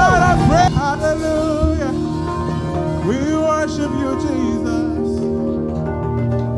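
Live church praise-band music: voices sing and slide through a held line over the band, then the band settles into sustained held chords near the end.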